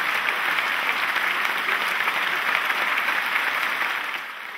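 Audience applauding steadily at a curtain call, the clapping dying down near the end.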